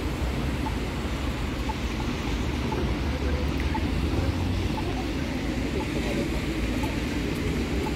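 Steady traffic noise at a rain-wet street intersection: a constant low rumble with tyres hissing on the wet road.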